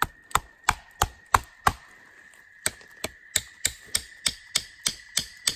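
Steel shovel blade hammering on the spine of a knife, batoning it into the end of a green sapling to split it into tines for a frog gig. Sharp knocks at about three a second: six, a short pause, then about ten more.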